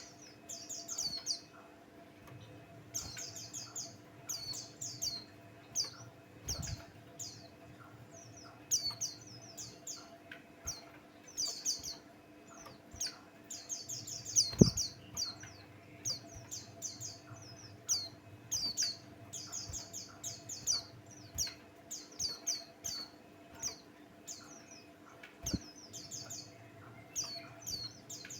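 A white-eye songbird (pleci) singing in quick bursts of high, rapid chirps and trills, over a faint steady hum. Three thumps break in, the loudest about halfway.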